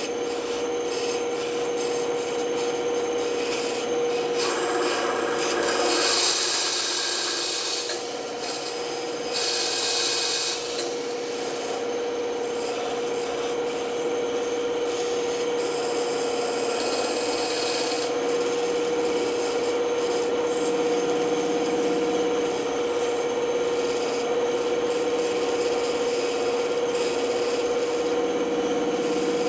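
Band saw running with a steady hum while its blade cuts wood with a rasping hiss, which grows louder twice in the first ten seconds or so.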